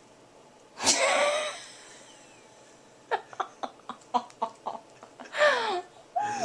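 A person's wordless vocal sounds: a loud high squeal about a second in, then a run of short breathy gasps at about four or five a second, and falling whining cries near the end.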